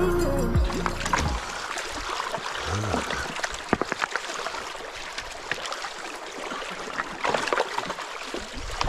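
Background music ends in the first second or so, followed by water trickling and splashing at a beaver dam, with scattered knocks and clicks.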